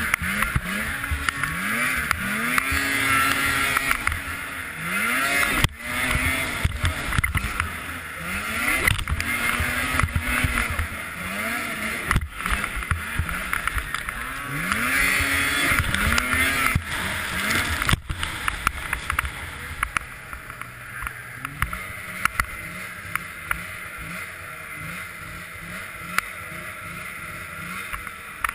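Racing snowmobile's two-stroke engine revving up and easing off again and again as it runs the course, with wind rushing on the microphone and a few sharp knocks. In the last several seconds the engine settles to a lower, steadier running.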